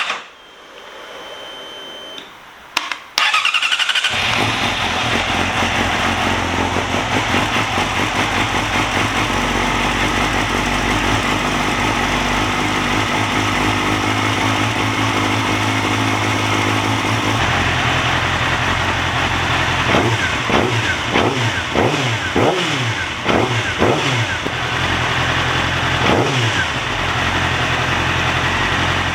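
Yamaha YZF-R6 inline-four engine cranked on the electric starter and catching about four seconds in, then idling steadily while it warms up, with a run of short throttle blips in the second half.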